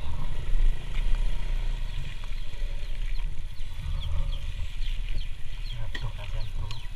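Birds chirping in many short, quick falling calls over a steady low rumble.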